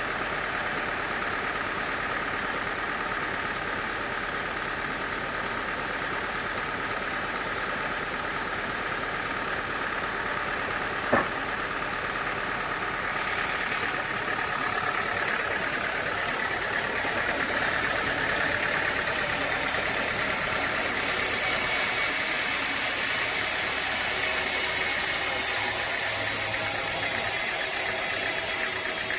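Engine-driven machinery running steadily, with one sharp knock about eleven seconds in; the sound grows brighter and slightly louder about twenty seconds in.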